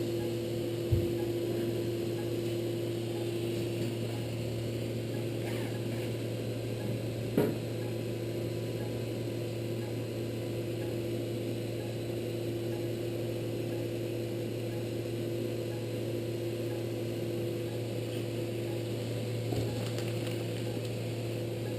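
Steady low electrical hum of operating-room equipment with a fainter steady tone above it, broken by two brief clicks, one about a second in and one about seven seconds in. The higher tone drops away near the end.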